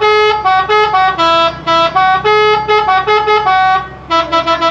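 Blue Star bus's telolet horn playing a quick tune of short, bright horn notes that jump between pitches; it breaks off about four seconds in and starts the tune again just before the end.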